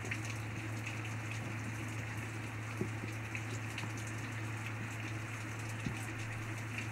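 Steady rain falling, with scattered sharp ticks of single drops, over a constant low hum.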